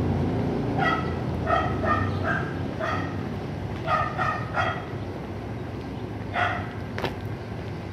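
A small dog barking in short, high yaps, about nine of them in three bunches, over a low background rumble of street traffic. A single sharp click about seven seconds in.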